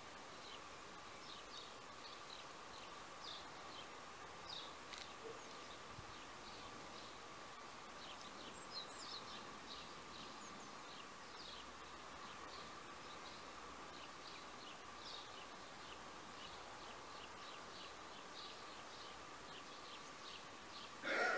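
Faint garden ambience: many short high chirps from small birds over a steady thin high hum, with a brief louder sound at the very end.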